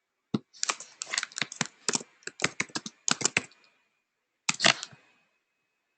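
Typing on a computer keyboard: a quick run of key clicks for about three seconds, a pause, then a short burst of keystrokes about four and a half seconds in.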